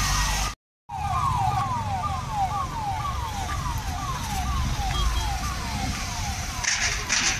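A vehicle siren sounding a repeated falling wail, about two sweeps a second, over the low rumble of vans driving past. The sound drops out for a moment just after the start, and a few short hissy bursts come near the end.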